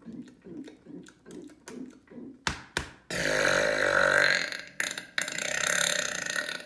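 Two sharp clicks, then a long, loud burp lasting about three and a half seconds, with a brief break partway through.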